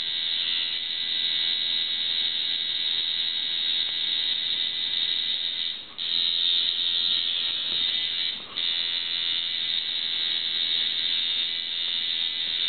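Electric tattoo machine buzzing steadily while tattooing, with a high, even drone; it drops out briefly twice around the middle.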